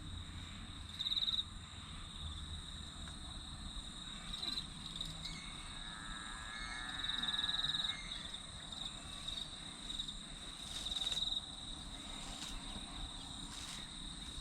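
Insects trilling steadily in high pitch, with a louder pulsing trill swelling up four times. A faint wavering call sounds about halfway through.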